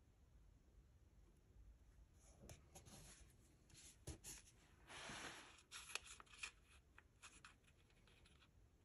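Faint handling of paper and stickers on a planner page: soft rustles and small taps, starting about two seconds in, with a short, louder rustle near the middle.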